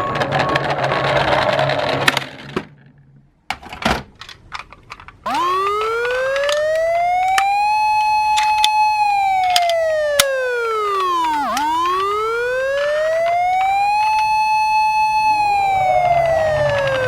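Wailing siren, its pitch rising slowly, holding, then falling, twice over about twelve seconds, starting about five seconds in. Before it come a short noisy stretch and a few sharp clicks.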